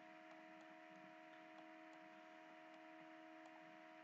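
Near silence: a faint steady electrical hum with light hiss and a few faint ticks.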